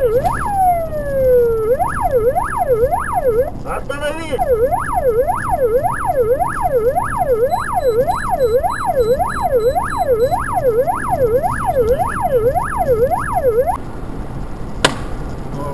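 Police car siren in fast yelp mode, its pitch rising and falling about twice a second over steady road noise. About half a second in it drops into one long falling sweep, then resumes yelping after a brief break around four seconds, and cuts off about 14 seconds in. A single sharp crack follows about a second later.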